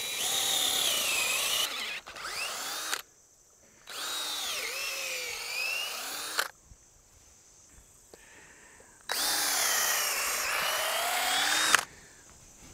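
Cordless drill boring a long bit straight through a wooden fence post. It runs in three spells of about two and a half to three seconds each, with pauses between them. In each spell the motor's whine sags and recovers as the bit loads up in the wood.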